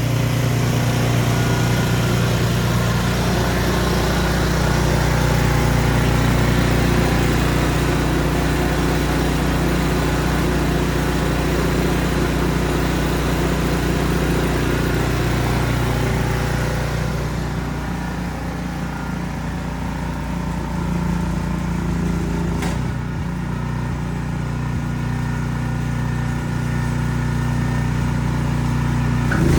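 Ariens Platinum SHO 24-inch two-stage snow blower's engine running steadily, with a broad hiss over it that fades about seventeen seconds in.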